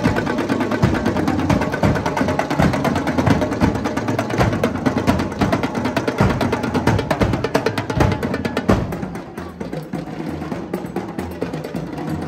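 A marching band's drumline playing, rapid sharp drum hits in a busy rhythm. It gets somewhat quieter about nine seconds in.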